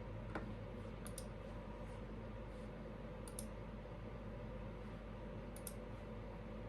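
A few sharp computer mouse clicks, several as quick double ticks of press and release, a second or two apart, over a low steady hum.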